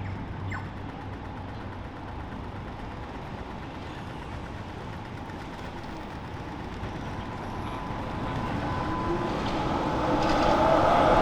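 City street traffic noise, with a vehicle approaching and growing steadily louder over the last few seconds.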